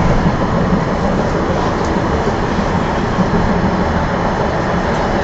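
Tram running along its rails, a loud, steady rolling noise of wheels and running gear heard from inside the car.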